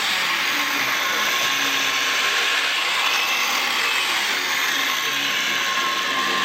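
Vintage Milwaukee 6210 electric chainsaw cutting through a hard, dry black locust log, pushed hard into the wood. The motor runs loud and steady under the load without bogging down.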